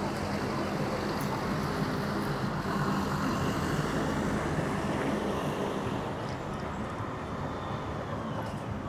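City street traffic: a motor vehicle's engine hum grows louder through the middle and eases off near the end, over steady road noise.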